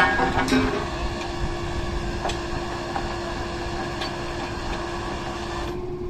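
Truck-mounted borewell drilling rig's engine running steadily, with a few sharp metal clanks from drill pipe and bit being handled at the rig, the loudest right at the start. The higher part of the running noise drops away near the end.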